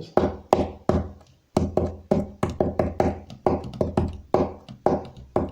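Hands drumming a rhythm on a wooden table: low closed-hand thumps mixed with sharper high taps from the fingertips at the table's edge, about three strokes a second, with a short break about a second in.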